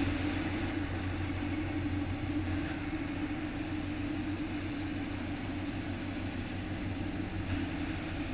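A steady low hum of a running motor, unchanging throughout.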